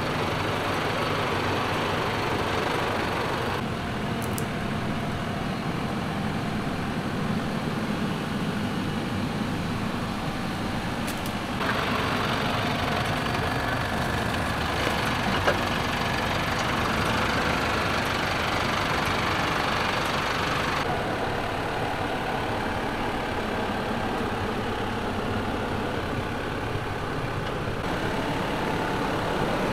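Mercedes-Benz Unimog UHE 5023's 5.1-litre four-cylinder OM 934 diesel running steadily without revving as the truck crawls over rough dirt. The sound shifts abruptly a few times as the shots change. There is a single short knock about halfway through.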